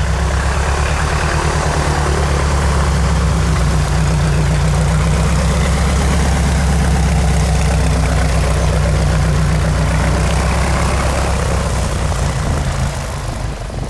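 Small single-engine bush plane, a high-wing taildragger on big tundra tires, taxiing close by: its piston engine and propeller run at low power with a loud, steady drone. The sound eases off a little near the end as the plane turns away.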